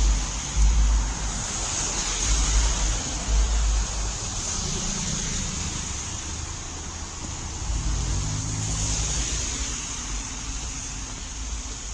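Traffic passing on a rain-soaked street: a steady hiss of tyres on wet asphalt, with a car engine's hum swelling and fading about eight seconds in. Low rumbling buffets on the microphone in the first few seconds.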